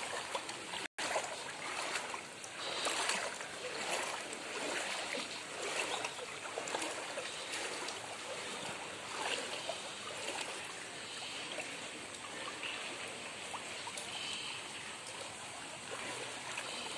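Floodwater in a street sloshing and splashing as someone wades through it, with a splash roughly once a second.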